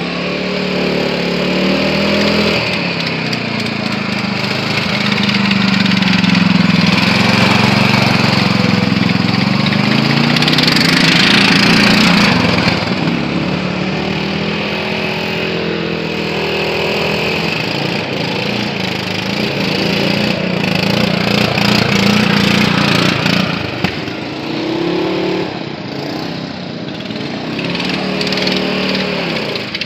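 Mud mowers, riding lawn mowers on big knobby tires, driving around with their gasoline engines running. The engine pitch rises and falls repeatedly as they speed up and slow down, loudest about midway through.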